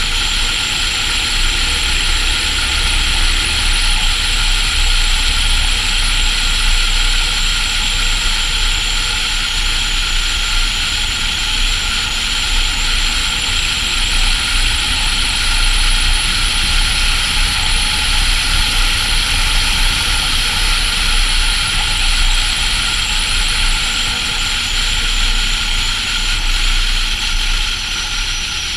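Volvo FH16 700 truck on the move at a steady speed: its 16-litre inline-six diesel running evenly under a constant hiss of road and wind noise.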